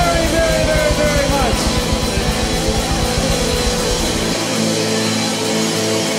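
Live rock band with electric guitars and drums playing loud; about four seconds in the drums and bass drop out, leaving a chord held and ringing.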